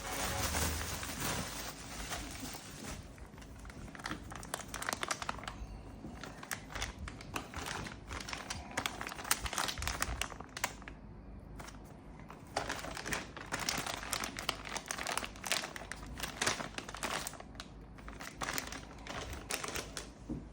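Packaging crinkling and rustling as it is handled during an unboxing, with irregular crackles all through.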